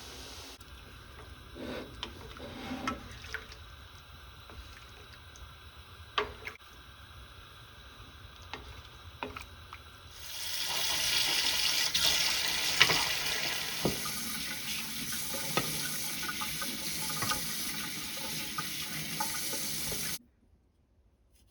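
A few clicks and knocks of handling at a kitchen sink. About halfway through, a tap runs water into the sink for about ten seconds, then shuts off abruptly.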